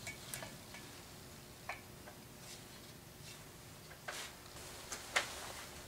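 A few irregular light clicks and taps of small engine parts being handled: a reed cage and its gasket being lined up against a two-stroke cylinder's intake port, the loudest tap near the end.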